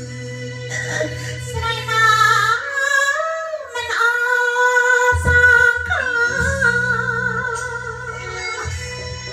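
A man singing into a handheld microphone over backing music, holding one long high note from about four seconds in to near the end.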